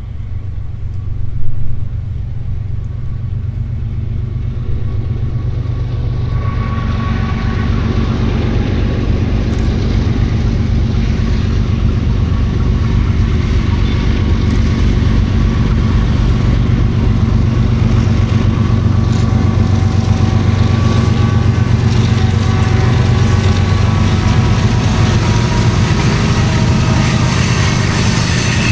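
Diesel freight locomotives working past, their engine drone building louder over the first several seconds and then holding steady. There is a brief louder burst about a second and a half in.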